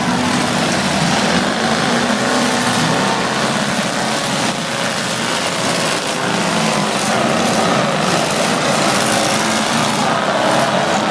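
Several demolition derby cars' engines running and revving at once, a loud, continuous engine noise.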